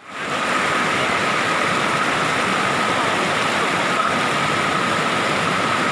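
Fast-flowing river swollen with flood water, rushing steadily over and around boulders, with a faint steady high tone above it. It comes in over the first half second.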